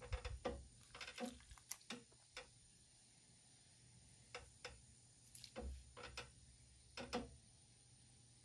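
Faint, irregular wet clicks and squelches of clay-covered hands working a teacup's wall and rim on a spinning electric potter's wheel, in a cluster over the first two and a half seconds and again from about four to seven seconds in, over a faint low hum.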